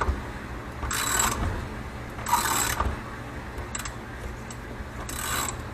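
Ratchet cranking a spring compressor down on a coil-over shock's coil spring, in three short ratcheting strokes with a small click between them.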